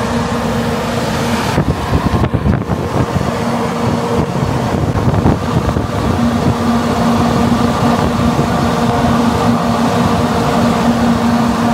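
Strong blast of air from a Shinkansen car's underfloor exhaust vent, buffeting the microphone, with a steady fan hum running under the rushing air.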